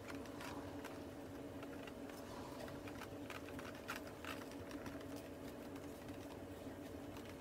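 Faint rubbing and scattered small ticks of a ceramic-coating wipe being worked over a plastic taillight lens, over a steady low hum.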